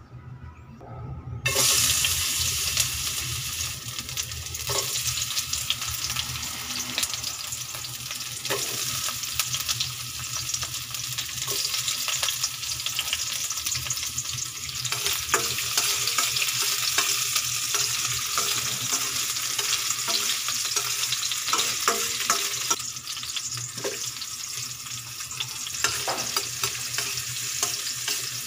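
Garlic and ginger frying in hot oil in a stainless steel pan: the sizzle starts suddenly about a second and a half in and then keeps going, with scattered clicks of a metal spoon stirring against the pan.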